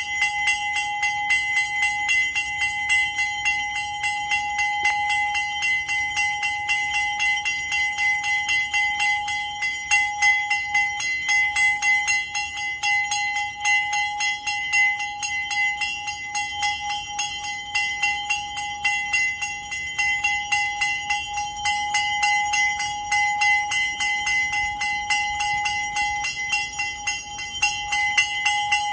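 A temple bell rung rapidly and without a break, its quick strokes blending into one sustained metallic ring, as is done during the aarti flame offering.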